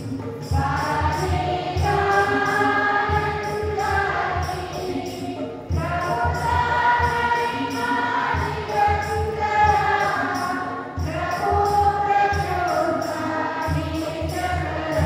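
A choir singing a hymn in phrases a few seconds long, over a drum keeping a steady beat, with a jingling rhythm on top.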